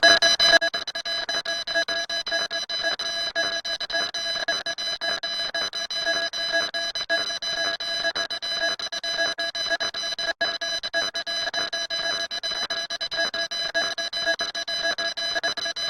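An electronic alarm-like tone, shrill and steady in pitch, pulsing rapidly, with a momentary cut about ten seconds in.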